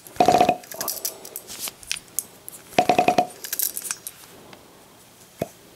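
Metallic clicking and rattling from an old nitro RC car being handled: two short bursts of quick ratcheting clicks, lighter clicks between them, and one sharp click near the end.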